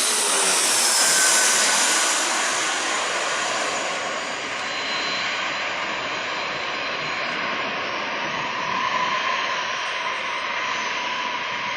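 Jet airliner's engines: a loud rushing noise whose sharpest, highest part dies away over the first few seconds as the plane moves off, leaving a steady duller rush with a faint whine.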